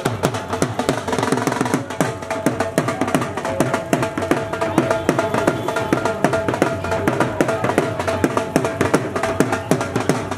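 Dhol drums beaten in a fast, steady rhythm, the deep strokes dropping in pitch, with a sustained tone held over the drumming.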